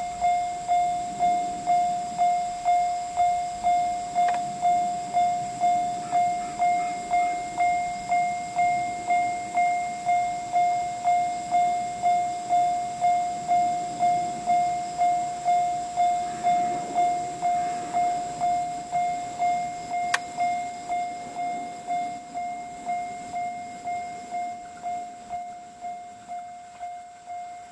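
Railway level-crossing alarm bell ringing, one repeated electronic ding a little under twice a second, which grows fainter near the end. A faint rumble of an approaching train sits beneath it.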